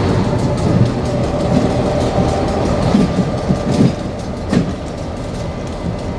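Diesel locomotive running as it pulls away down the track, its engine drone fading, with wheels clicking over rail joints and a sharper clack about four and a half seconds in.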